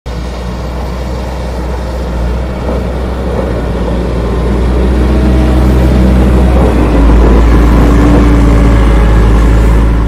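Diesel engine of a heavy construction machine (a backhoe loader) running under load with a deep rumble. It gets louder over the first several seconds.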